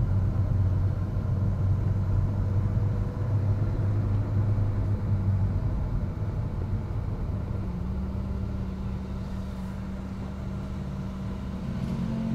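Ferrari 458 Spider's naturally aspirated V8 and road noise heard from inside the cabin while driving: a steady low drone whose pitch steps up about two-thirds of the way through.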